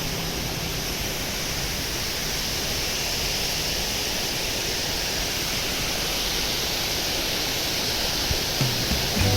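Waterfall rushing as a steady, even roar of falling water. Guitar music comes back in near the end.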